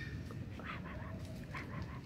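Kitten mewing: a run of short, high cries.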